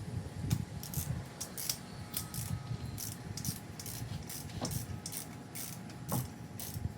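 Hand ratchet wrench clicking in a quick series of short strokes, with low knocks of metal parts being handled.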